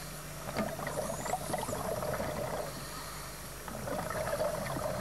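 Underwater scuba breathing sounds: bubbles gurgling and crackling from divers' regulators, swelling in two bursts of exhaled bubbles about a second apart.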